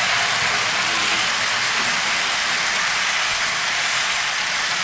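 Model steam train, locomotive and passenger coaches, running along the layout track: a steady, even hiss and rumble of wheels on rails.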